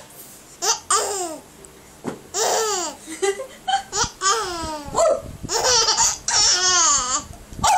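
Baby laughing in a string of short, high-pitched bursts, each falling in pitch, starting a little under a second in.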